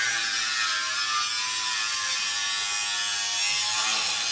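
Power tool running steadily while cutting: a dense, even hiss with a faint wavering whine.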